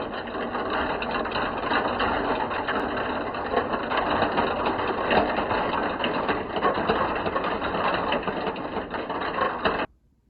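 Many marbles rolling and clattering down a plastic marble-run track, a dense, continuous rattle of small clicks that cuts off suddenly near the end.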